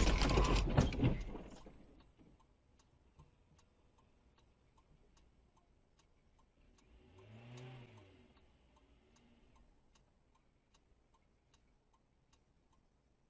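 A car crash: a loud impact and crunching that die away over about two seconds. Then comes a regular ticking, about two a second, typical of a car's indicator relay. Near the middle there is a brief low sound that rises and falls in pitch.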